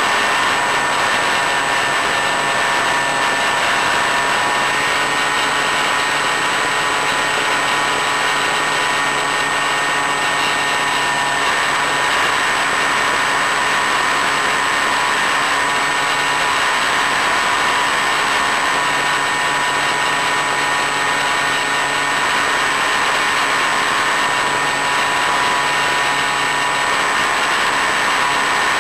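Multiplex EasyStar model plane's electric motor and pusher propeller running steadily, a high whine over a constant rush of air and hiss.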